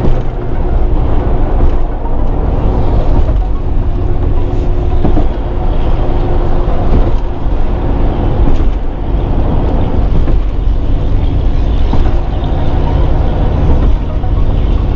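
Steady road, wind and engine noise inside a Ford Crown Victoria Police Interceptor cruising at highway speed, heavy in the low end.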